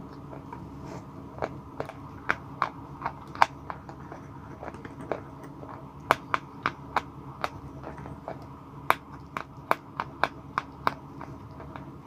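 Close-miked crunching of white blackboard chalk being bitten and chewed: a run of sharp, irregular cracks, loudest in clusters a couple of seconds in and again past the middle.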